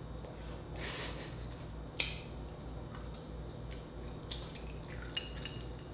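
Close-up wet mouth sounds of eating garlic butter clams: a few sharp lip smacks and slurping clicks while chewing the clam meat, the loudest about two seconds in.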